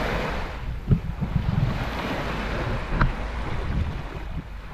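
Small waves lapping at the water's edge, with wind buffeting the microphone. Two brief knocks, about a second in and about three seconds in.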